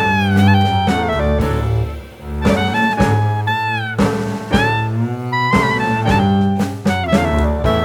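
Instrumental jazz background music: a melody line with bending, gliding notes over a low bass line and drum hits.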